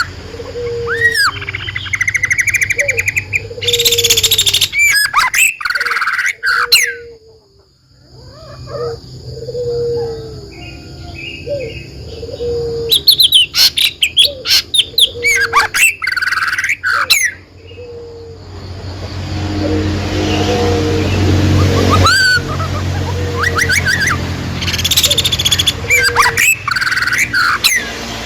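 Songbirds chirping and calling in repeated bursts of quick, high notes and short rising sweeps, over a steady low hum. The sound drops away briefly about seven seconds in, then the chirping resumes.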